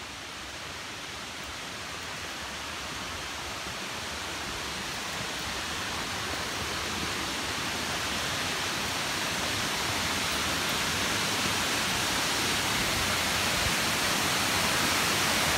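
Aguas Blancas waterfall rushing steadily. The sound grows gradually louder as the waterfall gets nearer.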